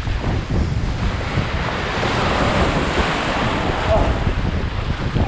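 Ocean surf washing and foaming in the shallows right at a water-level microphone, with wind buffeting the mic. The foaming wash grows louder about two seconds in, then eases.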